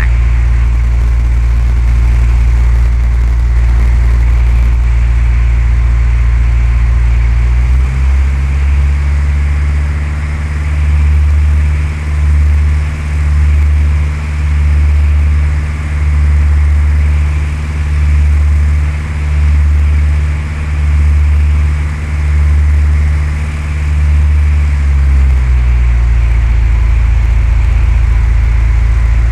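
Cessna 172's four-cylinder engine and propeller droning steadily. About eight seconds in, the engine note steps up and takes on a slow throb, about one every second and a bit. Near the end it drops back to the lower note.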